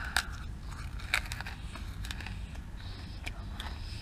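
Crunching and chewing of a brittle piece of freeze-dried ice cream: a few sharp crunches, the loudest about a second in, over a low steady hum.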